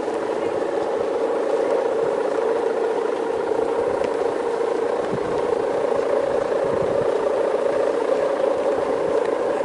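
Steady, unbroken drone from the bamboo-and-ribbon hummer (guangan) of a large Balinese bebean kite flying in strong wind, holding one low pitch without a break.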